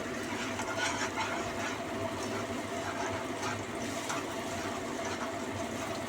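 Thickened tomato sauce bubbling in a pan: a steady hiss with many small scattered pops and ticks.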